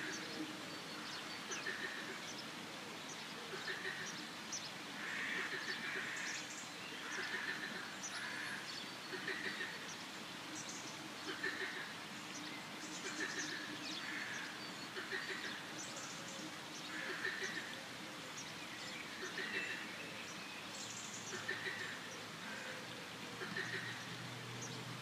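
Forest ambience of birds and frogs calling, with one call recurring every second or two and short chirps over a steady background hiss.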